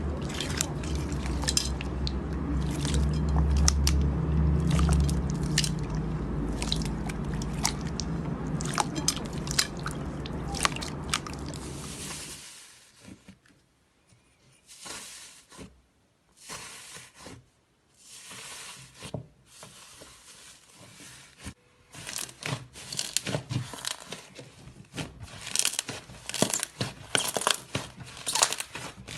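Iceberg slime being pressed and poked, its dried crust crackling in many small, sharp crunches. A low hum runs underneath for about the first twelve seconds. After that it goes quieter, with separate crunching bursts, until dense crackling picks up again near the end.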